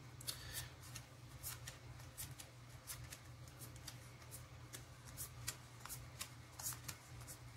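Magic: The Gathering basic land cards being handled and fanned out in the hands, their edges flicking against each other in quick, irregular faint clicks. A low steady hum sits underneath.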